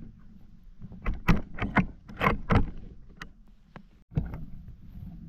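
Hunting rifle being loaded by hand: a quick run of sharp clicks and knocks as cartridges go in and the action is worked, with one more knock near the end, over low handling rumble.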